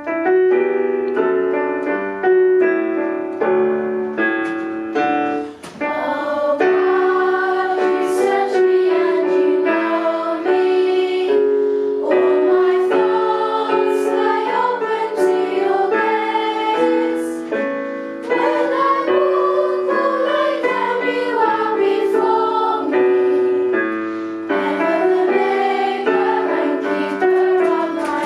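Hymn played on piano, with voices joining in singing about six seconds in after a short piano introduction.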